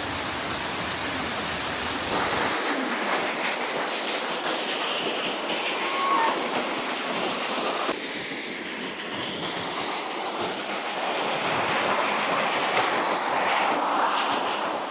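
Steady rush of falling water from a waterfall, its tone shifting a couple of times.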